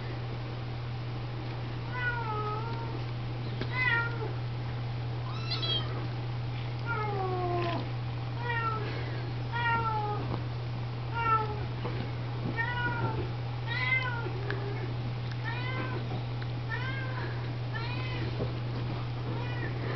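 Young kittens mewing over and over, short high-pitched calls about one a second, as the mother cat washes them; a steady low hum runs underneath.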